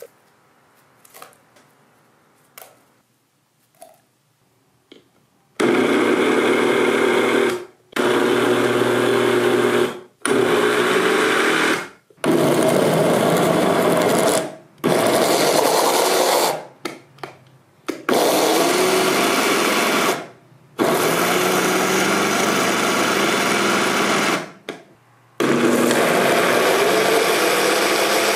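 Glass-jar kitchen blender switched on and off in about eight loud bursts of two to four seconds each, with short breaks between, churning thick slime and paint. A few faint clicks come in the first five seconds, before the motor starts.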